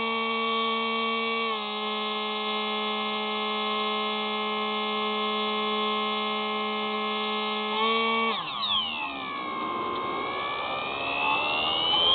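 Hubsan Spy Hawk RC plane's electric motor and propeller, heard from the onboard camera: a steady high whine that steps down in pitch about a second and a half in. About eight seconds in the whine drops away and turns into a sweeping tone that falls and then rises again in pitch as the plane noses down.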